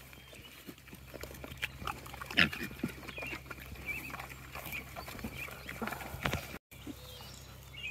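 Pigs snuffling and rooting with their snouts in the grass close by, with scattered short clicks and grunts. The loudest sharp sound comes about two and a half seconds in.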